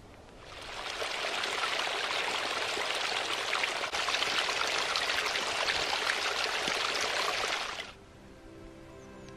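Shallow stream running over rocks, a steady rush of water that fades in over the first second and cuts off at about eight seconds. Soft music starts near the end.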